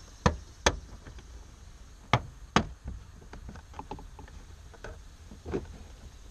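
Plastic door sill trim of a 2011 Toyota Tundra being pried up, its retaining clips popping loose: four sharp snaps in the first three seconds, then a few fainter clicks.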